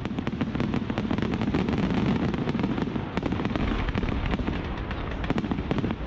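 Aerial fireworks going off: a fast, dense crackle of sharp pops over a continuous low rumble of bursts.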